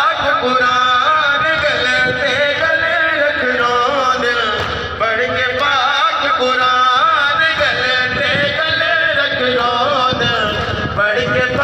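A noha, a Shia lament, chanted by male reciters in a sung melody that wavers up and down without a break.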